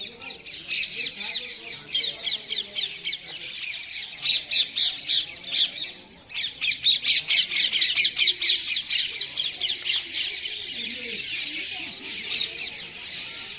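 A flock of parrots squawking and screeching in a dense, rapid chatter of many overlapping calls, with a brief lull about six seconds in.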